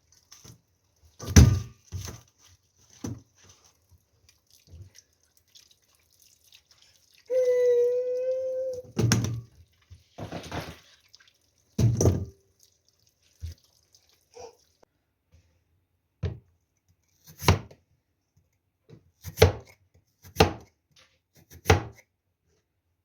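Kitchen work sounds: scattered knocks and clatters of utensils and cookware, with water running and dripping. About seven seconds in there is a brief pitched tone lasting a second and a half.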